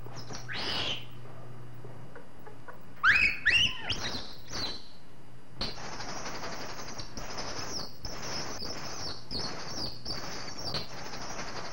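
Infant rhesus monkey giving high-pitched squeals and chirps. A burst of sharply rising squeals comes about three seconds in, followed by a steady run of shrill, repeated cries, about two a second. A faint low hum runs under the first couple of seconds.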